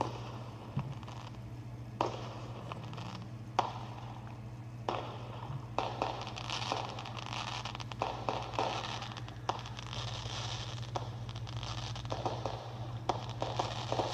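Firework crackling with scattered sharp pops.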